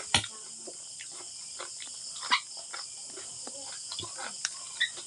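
Close-up eating sounds of dried squid being bitten and chewed by hand: short wet clicks and smacks of the mouth, the loudest just at the start and about two seconds in. Behind them, a steady high chirring of crickets.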